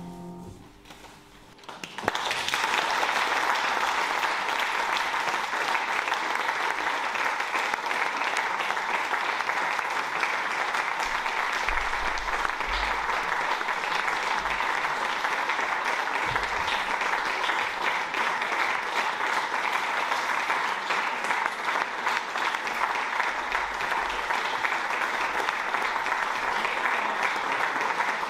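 A room full of people applauding, starting abruptly about two seconds in and going on steadily. Before it, the last notes of music die away.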